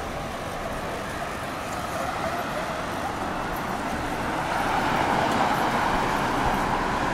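City road traffic: steady noise of cars, with a passing vehicle growing louder about four seconds in and easing a little near the end.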